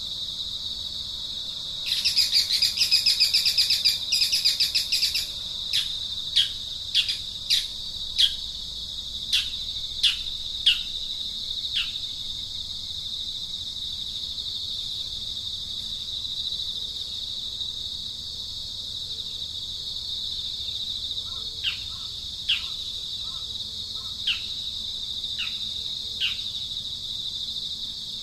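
Steady high-pitched insect chorus with a bird calling over it: a buzzy rapid trill for about three seconds starting two seconds in, then a string of short falling chirps about one a second, which stop midway and start again near the end.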